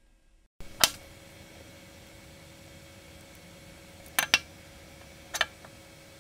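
Metal parts of a restored antique breast drill clicking as they are handled and set down on a table: one sharp click about a second in, a quick pair a little after four seconds, and one more near the end, over a faint steady hum.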